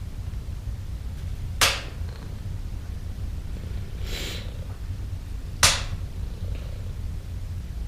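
Domestic cat purring, a steady low rumble. Two sharp clicks about four seconds apart are the loudest sounds, with a brief soft rustle between them.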